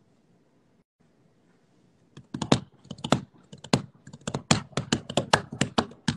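Near silence, then from about two seconds in an irregular run of sharp clicks or taps, roughly two or three a second.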